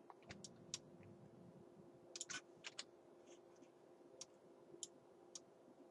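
Faint computer keyboard key presses and mouse clicks, about ten short scattered taps, over a faint steady low hum.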